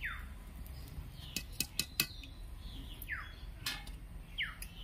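A bird calls three times, each a short whistled note falling in pitch. About a second and a half in, a few sharp metal clinks, a metal slotted ladle knocking against an iron kadhai.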